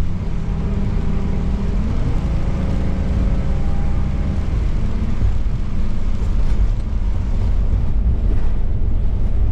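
A large engine running with a steady low rumble, its pitch rising for a moment about two seconds in.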